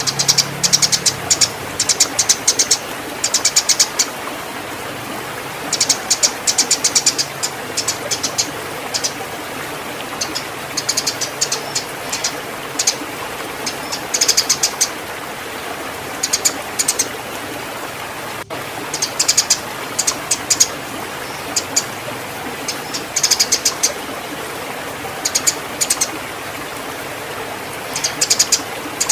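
Eurasian tree sparrows chattering in clusters of rapid, high chirps, a burst every second or two over a steady hiss. It is the agitated chatter of sparrows fighting in breeding condition.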